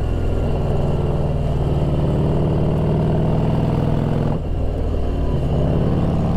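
Motorcycle engine running under way on a winding road; its note dips briefly about four seconds in, as the throttle eases, then pulls steadily again.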